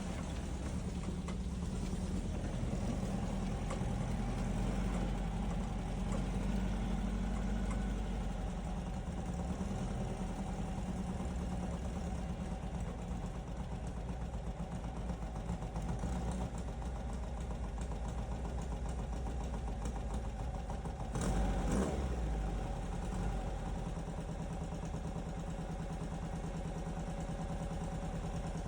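Rail buggy engine running steadily, with a brief louder thump about three-quarters of the way through.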